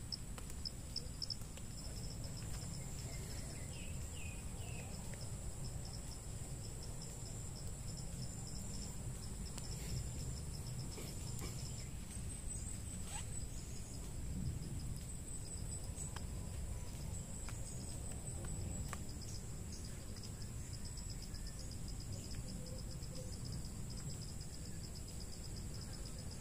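Insects trilling steadily, with one high continuous trill and a second, lower trill pulsing rapidly. A low rumble runs underneath.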